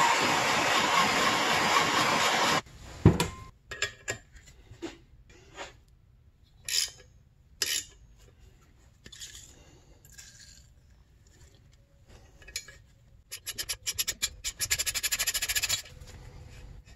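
A handheld gas torch hisses steadily as it heats a stuck nut on an engine crankcase stud, then cuts off about two and a half seconds in. Scattered metal clinks of tools follow. Near the end a ratcheting box wrench clicks rapidly as the heated nut is turned.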